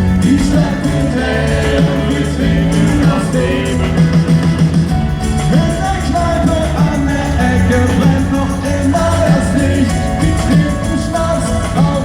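Pop-rock band playing live: singing over a steady bass line and drums.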